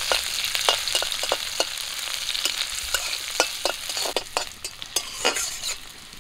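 Chopped onions sizzling in hot oil in a metal kadai, stirred with a metal spatula that clicks and scrapes against the pan many times. The sizzle eases off near the end.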